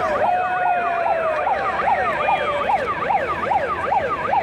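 A siren-like noisemaker wailing in the arena crowd, its pitch swinging up and down about twice a second, with a second, higher wail overlapping it. Near the start a held tone sounds for about a second, sliding slightly down.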